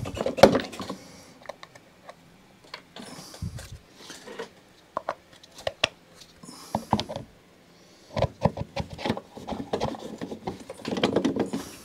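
A lawn mower's plastic drive wheel being pulled off its axle and pushed back on by hand: irregular clicks, knocks and rubbing of plastic against metal, with a few short scrapes, busiest over the last few seconds.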